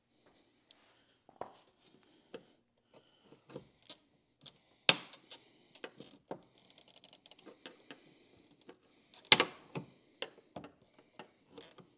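Plastic retaining clips of a Mitsubishi Minicab door trim panel popping loose as the panel is pried off without trim tools: scattered clicks and rattles, with two loud snaps about five seconds in and just past nine seconds.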